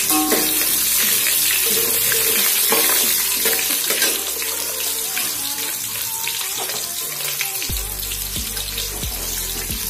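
Large-cut onions sizzling and frying in hot oil with mustard seeds in a large aluminium pot: the first stage of a sambar tempering. A steel spatula scrapes and clinks against the pot as they are stirred.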